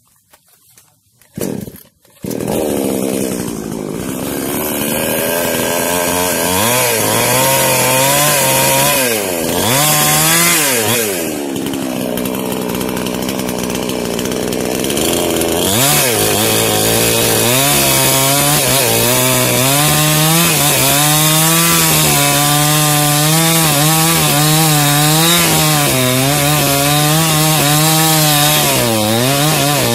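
Small New Paxton two-stroke chainsaw starting about two seconds in, then running and revving, with the revs dropping and picking up again twice. In the later part its pitch wavers as it cuts into the base of a tree trunk.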